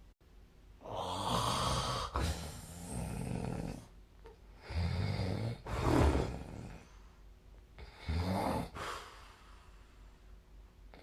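A sleeping person snoring: three long snoring breaths with quiet gaps between them, the loudest about six seconds in.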